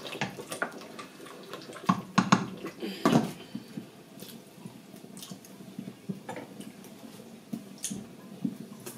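Wooden spoon stirring thick tomato stew in a stainless steel pot, with knocks against the pot, then the glass lid set back on with a clink about three seconds in. After that the frying stew sputters with small scattered pops under the lid.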